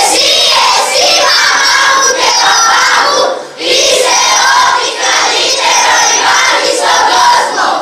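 A large group of children's voices calling out loudly together in unison, in two long stretches with a brief break a little before the middle, then falling away at the end.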